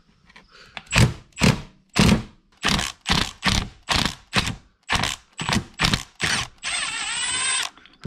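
Milwaukee Fuel brushless cordless impact hammering on a Loctited bolt at the motor end of an ARB air compressor's piston: about fourteen short trigger bursts, then one longer steady run of about a second near the end as the bolt breaks loose and spins out.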